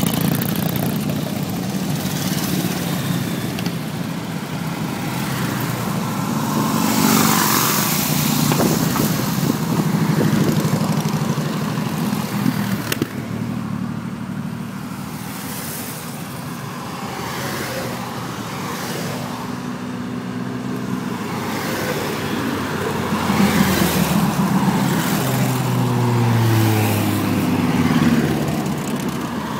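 Road traffic: motor vehicles driving by with engine and tyre noise, one engine rising in pitch as it accelerates near the end.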